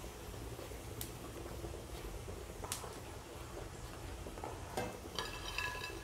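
Wire-mesh skimmer clinking against a metal kadhai as crisp deep-fried okra is lifted out and tipped onto a plate. A few light clicks, then a short ringing metallic rattle near the end.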